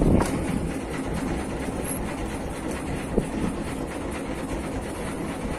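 Steady rumble and rush of wind and choppy water around a small boat at sea.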